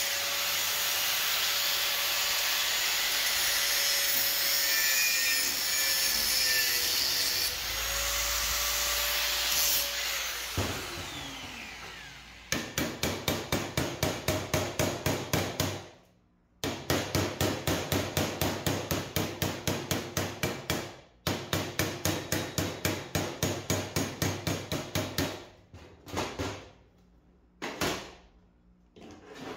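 Angle grinder with a small cutting disc cutting steel plate, its motor whine dipping under load, then switched off about ten seconds in and spinning down. It is followed by rapid, even strokes of a hand tool on the steel, about four a second, in three runs with short pauses, ending in a few scattered knocks.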